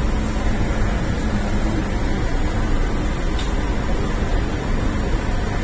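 Steady rushing hum of an East Rail Line R-Train carriage's air-conditioning and ventilation, with the open doors letting in the station platform's ambience, as the train stands at a stop.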